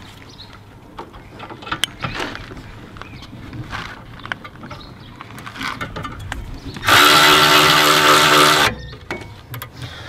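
Cordless electric ratchet running steadily for just under two seconds about seven seconds in, spinning down a brake caliper bracket bolt. Before it, small metallic clicks and knocks as the bolt and tool are fitted.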